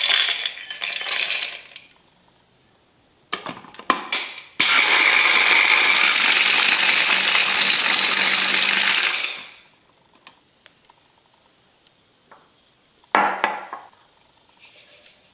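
Dry bread cubes rattle into a plastic chopper bowl, then after a few clicks the hand blender's chopper motor runs steadily for about five seconds, grinding the bread into crumbs. Near the end the crumbs are poured out of the plastic bowl into another bowl with a short rush.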